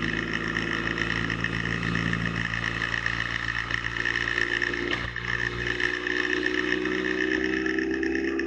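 Motorcycle engine running while riding at highway speed; its pitch climbs steadily from about halfway through as the bike speeds up.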